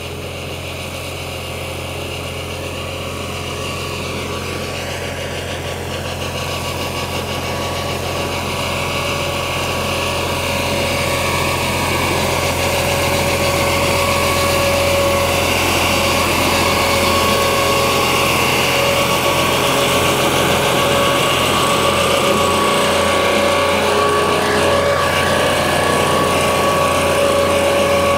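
IHC 633 tractor's diesel engine running steadily under load while pulling a rear-mounted drum mower through tall grass, growing louder as it approaches. A steady whine runs alongside and becomes clearer in the second half.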